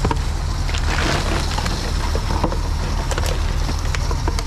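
TOMRA reverse vending machine running with a steady low hum as plastic bottles are fed in one at a time. Several short clicks and some plastic crinkling come as the bottles go in.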